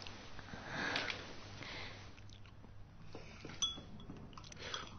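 Quiet eating sounds from bowls: soft sipping and chewing, with a couple of light clicks of chopsticks against china later on.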